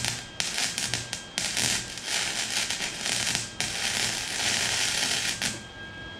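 Wire-feed (MIG) welder arc crackling and sputtering as it welds a steel exhaust pipe: a short burst, a quick stutter of brief strikes, then two longer runs, and the arc stops about five and a half seconds in.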